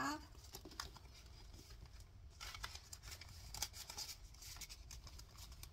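Faint rustling and a few light clicks of paper dollar bills and a zippered plastic pouch in a ring binder being handled.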